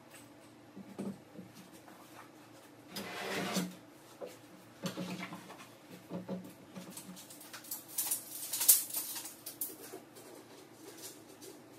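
Intermittent light knocks, clicks and scrapes of handling work, with a brief scraping rustle about three seconds in and a sharper clatter about eight and a half seconds in.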